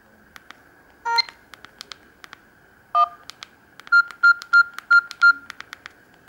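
Samsung GT-E1200Y feature phone: sharp key clicks and a couple of short electronic beeps, then five quick identical beeps in a row, over a faint steady high whine.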